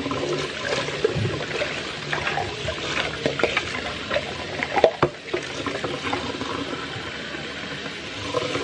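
Kitchen tap running into a stainless steel sink while plastic sippy cups are rinsed under it, the water splashing off the cups. Scattered knocks, the loudest about five seconds in, from the cups being handled in the sink.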